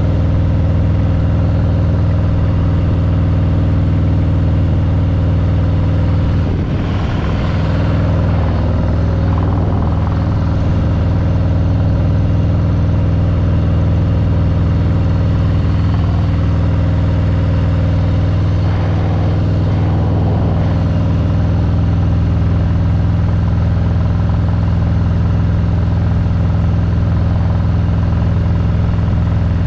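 Harley-Davidson Street Bob 114's Milwaukee-Eight 114 V-twin running through its exhaust at a steady engine speed, with a brief dip in level about seven seconds in.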